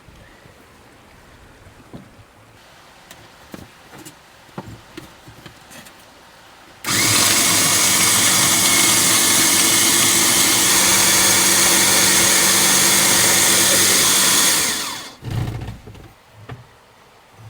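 A small electric motor runs loudly and steadily for about eight seconds, starting abruptly about seven seconds in and cutting off near fifteen seconds, with a steady hum under a wide hiss. Before it, only faint clicks and knocks of handling.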